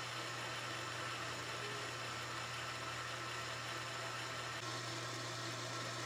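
Metal lathe running steadily, its chuck spinning a steel bar while the cutting tool turns it down: a constant low hum with an even hiss over it.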